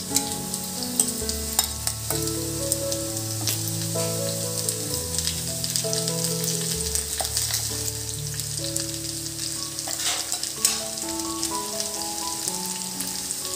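Chicken pieces sizzling as they fry in a nonstick pan, with a steel spoon scraping and tapping as red garlic-chilli paste is spooned out of a steel bowl onto them; one sharper tap about ten and a half seconds in. Soft background music with slow held notes plays underneath.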